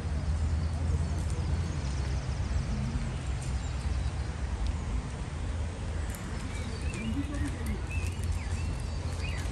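Outdoor ambience: a steady low rumble, with small birds chirping a few times in the second half.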